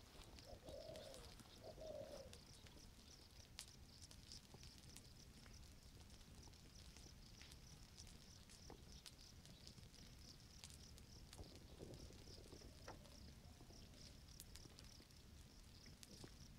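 Near silence: the faint crackle of a low ground fire in pine litter, a few scattered snaps and ticks. Two short, low cooing bird calls come in the first two seconds, over a faint, steady, high buzz.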